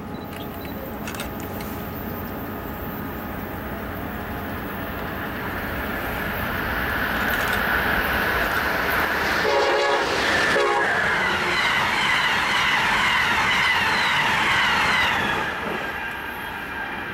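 A passenger train on the Northeast Corridor approaching and running past at speed, growing louder as it nears. It sounds two short horn blasts about a second apart, followed by a loud rush of wheels on rail that falls off near the end.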